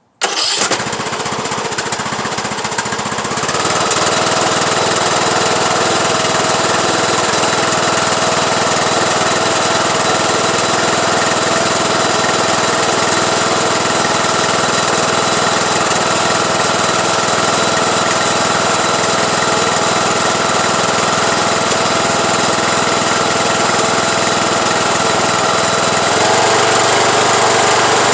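Craftsman YT3000 lawn tractor engine starting up and running steadily. It picks up a little a few seconds in, and its note shifts again near the end.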